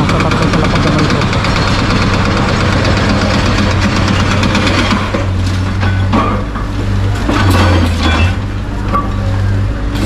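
Hydraulic excavator's diesel engine running steadily during building demolition. From about five seconds in, scattered knocks and cracks of concrete breaking come through.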